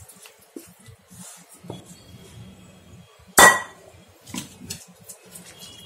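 A spatula scrapes rice out of a metal kadhai into a glass dish with light knocks and clinks. About three and a half seconds in comes one loud metallic clank of the pan.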